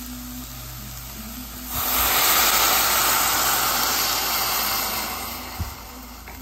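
Homemade stock hitting a hot pot of sautéed vegetables: a loud sizzling hiss that starts suddenly about two seconds in and dies down after a few seconds. There is a light knock near the end.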